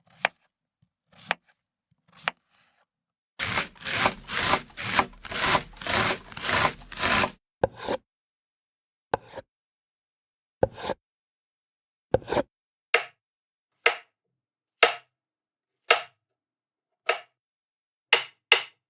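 Knife cutting on a board: three single cuts about a second apart, then about four seconds of fast chopping at roughly three strokes a second, then slower single cuts about once a second.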